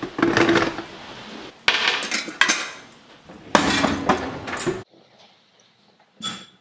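A kitchen drawer is pulled open and the cutlery in it rattles in several bursts as a teaspoon is taken out, ending abruptly as the drawer shuts. Near the end a metal teaspoon clinks once against a ceramic mug as the tea is stirred.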